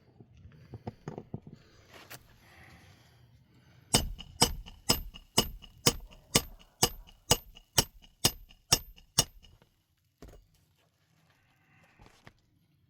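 About a dozen sharp metallic strikes, evenly spaced at roughly two a second, each ringing briefly. They start about four seconds in and stop a few seconds before the end, after softer clicks and handling knocks.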